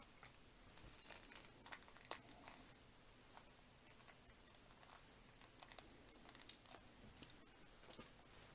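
Faint scattered clicks and light rustling as fingers handle a small model-kit part.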